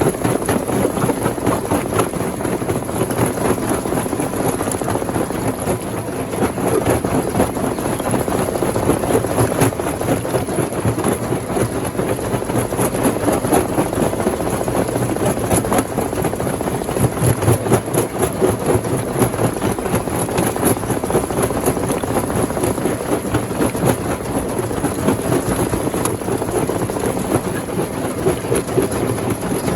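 Rock crusher machine running steadily under load, its motor drone mixed with a constant clatter and grinding of stone being broken.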